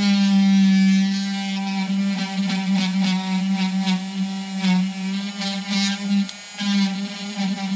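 Handheld cordless rotary tool running at a steady buzzing hum, its bit working into juniper wood to carve a shari (stripping bark down to deadwood). The hum drops briefly about six seconds in, then picks up again.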